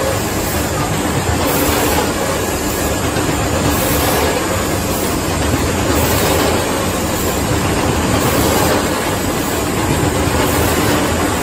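PK54-55 automatic business card cutting and collating machine running steadily, feeding printed card sheets along its roller-guided conveyor toward its rotary slitting knives: a continuous, loud mechanical running noise.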